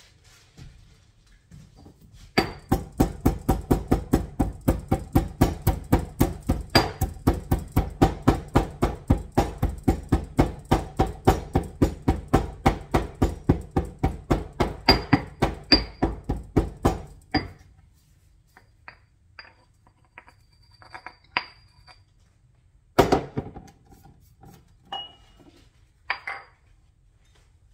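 Stone pestle pounding in a granite mortar: a fast, even run of sharp knocks, about four a second, starting a couple of seconds in and stopping about two-thirds of the way through. After that come a few scattered knocks and clinks of stone on stone, the strongest one near the end.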